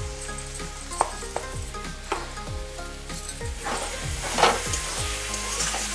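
Jackfruit sabzi frying in a kadai with a light sizzle, and a spatula stirring and scraping through it, loudest about four seconds in.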